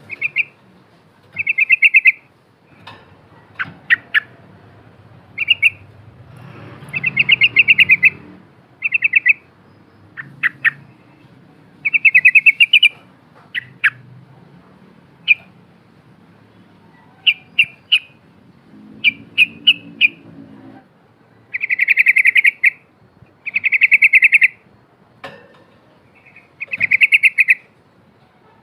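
Yellow-vented bulbul (trucukan) singing loud, repeated short bubbling trilled phrases, each about half a second to a second long with pauses between, mixed with sharp single chip notes.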